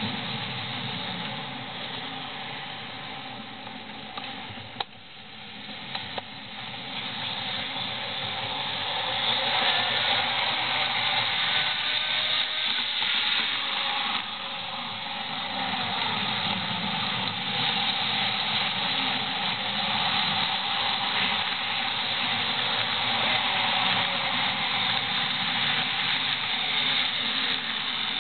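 Model trains running on the layout's track: a steady whirring rumble of motors and wheels that grows louder from about eight seconds in as a train approaches. There are a few sharp clicks about five and six seconds in.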